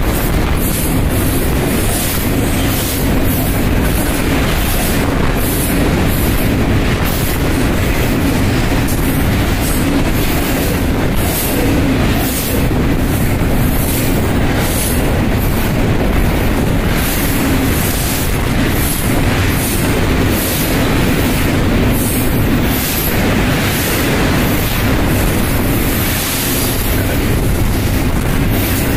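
A train running steadily, with a regular clicking of wheels over rail joints over a continuous rumble.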